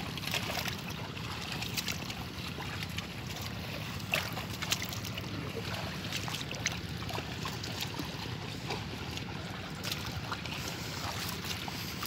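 Splashing and squelching of the plough team's hooves and a wooden plough dragging through waterlogged paddy mud, with irregular wet splashes over a steady wind rumble on the microphone.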